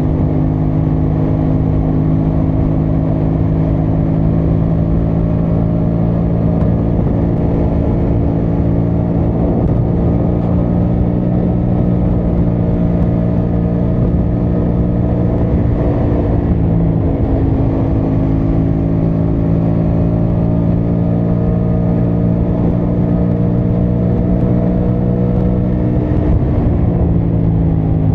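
Aprilia Tuono 660 Factory's parallel-twin engine running at steady road speed, heard from the rider's position over low wind noise. The engine note dips briefly a little past halfway, slowly climbs again, and falls away near the end as the bike slows.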